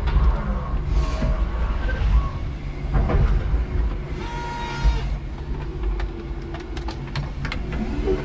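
5-ton electric forklift truck driving across a warehouse floor, heard from inside its cab: a steady low rumble with rattles. A short beep comes a little past four seconds in, and a few sharp clicks near the end.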